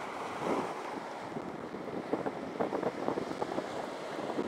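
Shore-break surf washing up a sandy beach, with wind buffeting the microphone; a run of faint crackles and clicks in the second half.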